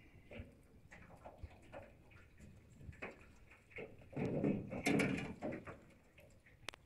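A hooked peacock bass thrashing and splashing at the side of an aluminium fishing boat as it is brought in, with scattered light clicks and one loud flurry of splashing and knocks about four seconds in.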